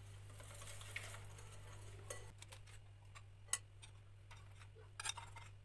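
Wire whisk stirring runny cake batter in a glass bowl with a soft swishing, followed by a few separate light clicks and taps of utensils against the bowl and a metal sieve as flour is spooned in. A faint steady low hum runs underneath.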